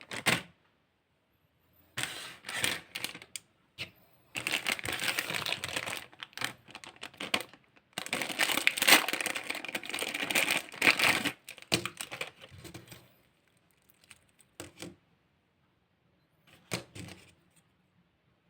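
Toy packaging being handled and opened: irregular crinkling, tearing and clicking of plastic and cardboard in bursts, densest and loudest in the middle of the stretch, with a few sparse clicks toward the end.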